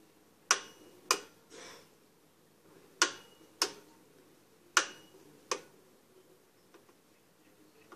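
Plastic Pie Face game handle being cranked: six sharp clicks, coming in three pairs about two seconds apart.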